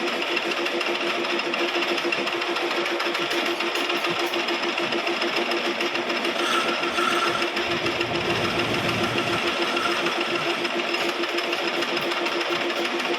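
Lathe running steadily with a pulsing hum and an even rasp as a chess pawn is turned, with a brief higher squeal about six and a half seconds in.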